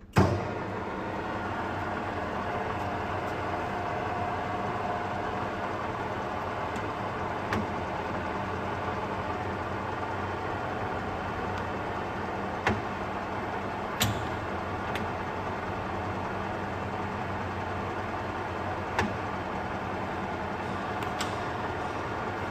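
Harrison M300 centre lathe switched on with a clunk, then running steadily: the 2.2 kW motor and headstock gears give a constant whine. A few sharp clicks come at intervals as the controls are worked.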